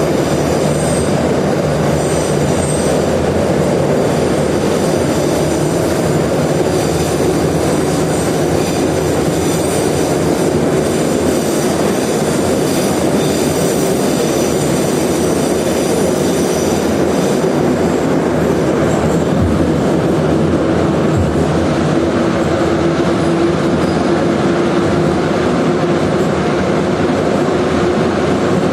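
An 81-717/714 "Nomernoy" metro train running between stations: a loud, steady rumble of wheels on rail, heard from inside the carriage. Thin high squealing tones sound through the first half and fade, and a steady hum grows clearer near the end.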